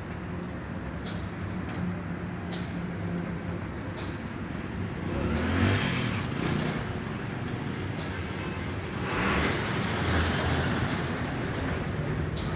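Motor vehicle engine running steadily, swelling louder twice, about halfway and about three-quarters of the way through, with a few light clicks.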